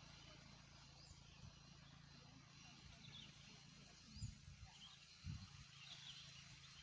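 Near silence: faint open-air field ambience with a few faint, short bird chirps and two soft low thumps a little past the middle.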